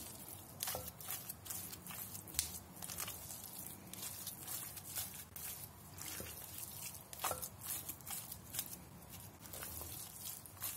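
A spatula stirring and pressing thick acuka paste of pepper and tomato paste with oil and ground walnuts in a glass bowl: quiet, irregular squelches with occasional taps of the spatula against the glass.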